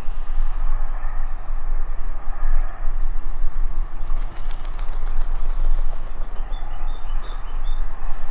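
Steady wind rumble on the microphone, with scattered faint high chirps of small songbirds.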